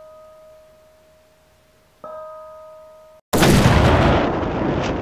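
Small hanging gong struck with a padded mallet, its few clear pitches ringing and slowly fading; it is struck again about two seconds in. A little after three seconds a loud boom-like sound effect breaks in and dies away slowly.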